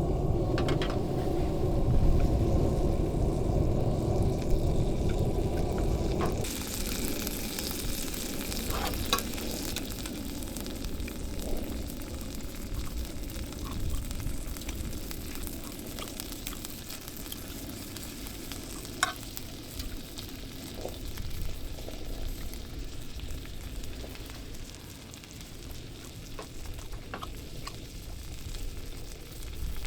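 Food sizzling on a portable gas grill-burner, a steady hiss with occasional light clicks of utensils. It comes in suddenly about six seconds in, after a low rumbling noise.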